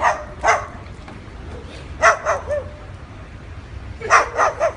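Sulphur-crested cockatoo imitating a dog's barking: short, sharp barks in clusters, a pair at the start, a few about two seconds in, and a quick run of four near the end.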